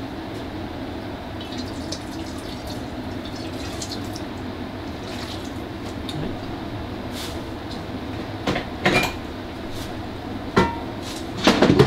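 Steady watery noise of liquid running or bubbling in a kitchen. In the last few seconds there are several sharp clinks and knocks of pots or utensils.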